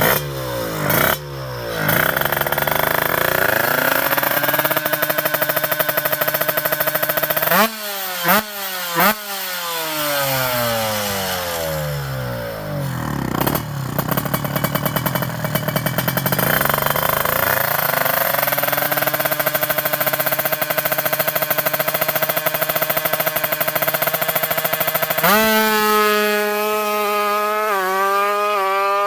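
Two-stroke Kawasaki Ninja drag-bike engine being revved during tuning, its pitch sweeping sharply up and down in repeated blips. Near the end it holds a steadier, high buzzing pitch.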